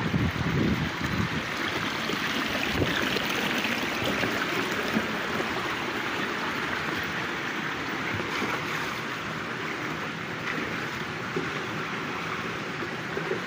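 Shallow creek water running over rocks and gravel, a steady rushing babble.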